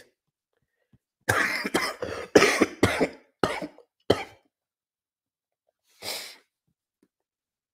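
A man coughing into his arm: a fit of about six quick coughs starting a second in and lasting about three seconds, then one more short cough near six seconds.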